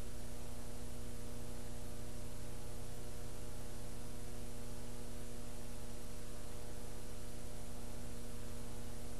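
Steady electrical mains hum, a buzz of several even tones, over a layer of hiss with no programme sound.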